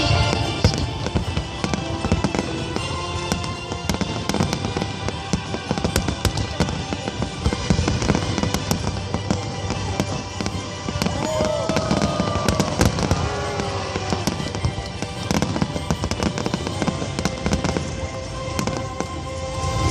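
Fireworks bursting in rapid, continuous bangs and crackles, with music playing underneath.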